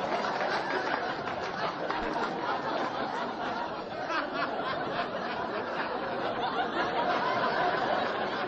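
Indistinct chatter of many voices at a steady level, with no single voice standing out.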